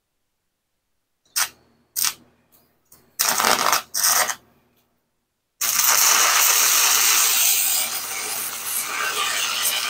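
Miller 300 stick welder arc crackling during overhead welding on a steel beam: struck in several short bursts, then after a pause a steady crackling arc held from about halfway in.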